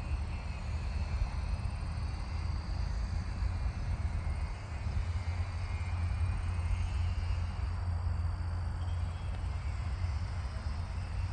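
Wind buffeting the microphone: an uneven low rumble with a light hiss, and no motor running while the electric RC plane glides unpowered.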